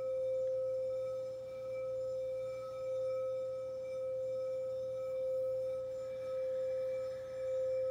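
Frosted crystal singing bowl sung by rubbing a wand around its rim: one steady, pure tone with fainter higher overtones, gently swelling and fading.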